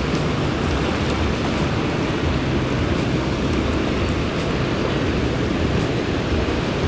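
Steady low rumble and rush of water pouring out of a dam's spillway gates.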